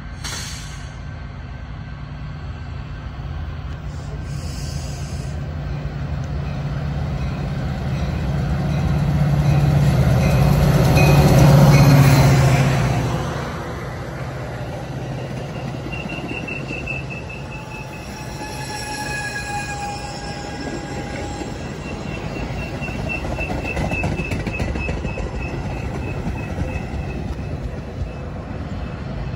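Metra bilevel commuter train approaching and passing. The low drone of its diesel locomotive builds to its loudest about twelve seconds in, then drops away as the cars roll by. In the second half there are stretches of high, steady metallic squealing as the train slows into the station.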